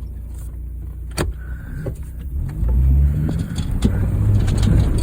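Honda Fit's four-cylinder engine running low, then revving up about two and a half seconds in as the car pulls ahead, its note rising and falling. A sharp click about a second in.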